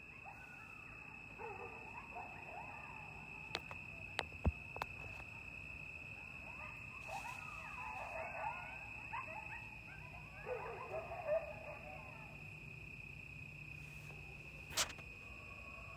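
A pack of coyotes yipping and howling in three bursts of many wavering, overlapping voices, with a steady high chirring of crickets and a low steady rumble of highway traffic beneath. A few sharp clicks come between the bursts.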